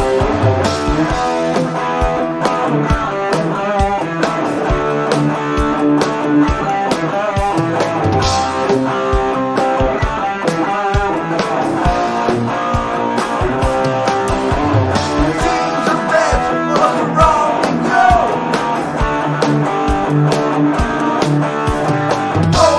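Two layered electric guitar parts, played on an ESP LTD Viper 200FM through a Blackstar FLY 3 mini amp, playing a hard-rock/metal instrumental over a programmed drum loop. Bent lead notes come in during the second half.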